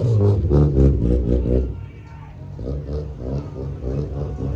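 Car engine and exhaust running at low revs; the sound drops off about two seconds in and then builds again.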